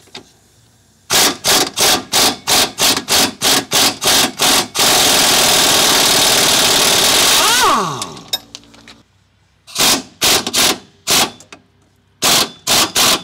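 DeWalt impact wrench hammering on a rusted 19 mm lower strut bolt to break it loose: first a quick string of about a dozen short trigger pulses, then about three seconds of continuous hammering that winds down with a falling whine as the trigger is released. After a short quiet gap come a few more short bursts, and another burst near the end.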